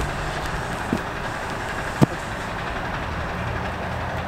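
Steady outdoor traffic-like rumble, with a few short sharp thumps; the loudest comes about two seconds in.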